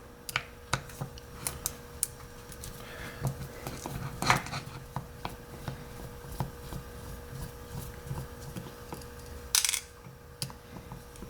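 Scattered light clicks and taps of small metal tools and lock parts being handled on a workbench. There is a short scraping rustle about four seconds in and another near the end, over a faint steady hum.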